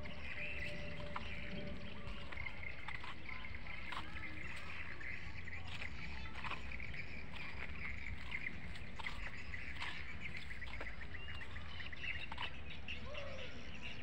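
Small birds chirping and calling, many short high chirps throughout, over a steady low rumble.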